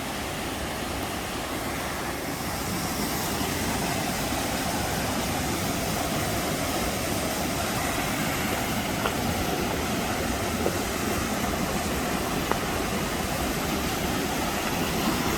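Steady rushing of a fast-flowing creek close by.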